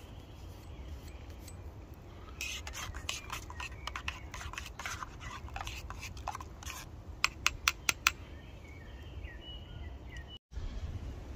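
A spoon stirring instant peach tea granules into hot water in a metal camping mug, scraping and clinking against the sides. It ends with five sharp clinks in quick succession.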